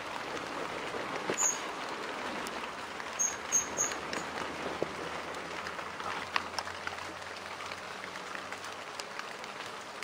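Rain falling on the leaves of a grapevine arbor: a steady hiss with scattered drips and taps. A few short high chirps come about a second and a half in and again around three and a half seconds in.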